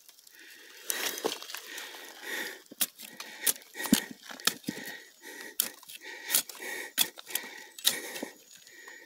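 Collared peccary cornered inside a burrow, breathing hard and clacking its teeth: a run of sharp, irregular clacks over breathy huffing. The tooth-clacking is the peccary's warning threat.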